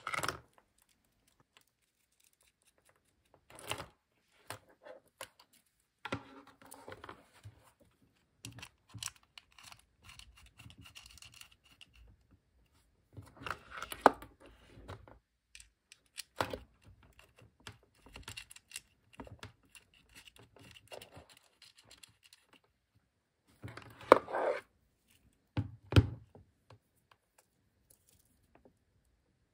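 Intermittent handling noises: small clicks, scrapes and taps of SMA coaxial cables and a brass SMA barrel connector being handled and screwed onto the spectrum analyzer's ports, with a few sharper knocks, the loudest near the middle and in the last few seconds.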